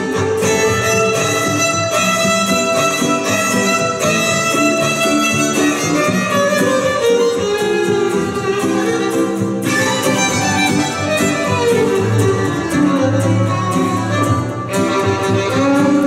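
Violin bowed in a melody of long held notes, with acoustic guitar accompaniment, in an instrumental passage.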